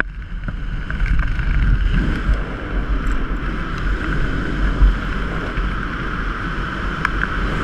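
Steady wind buffeting the helmet camera's microphone under an open parachute canopy: a low, rumbling rush with a hiss above it.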